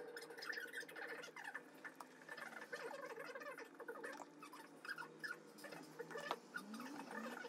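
Someone chewing a bite of scone with jam: irregular soft wet mouth clicks and smacks.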